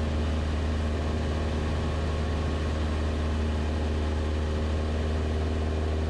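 Cessna 172 Skyhawk's piston engine and propeller droning steadily in flight, heard from inside the cabin as an even low hum.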